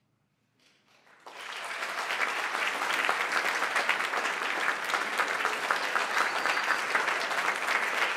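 Concert audience applauding at the end of a piece. After about a second of near silence, clapping breaks out and quickly swells into steady applause.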